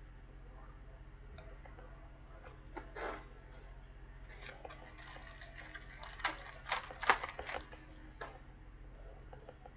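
Trading cards being handled and shuffled: scattered light clicks and rustles, busiest and loudest about seven seconds in, over a steady low hum.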